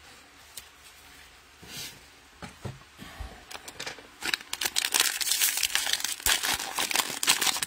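Cellophane wrapper of a football-card cello pack being torn open and crinkled. A few faint clicks of handling come first, then steady crackling from about four seconds in.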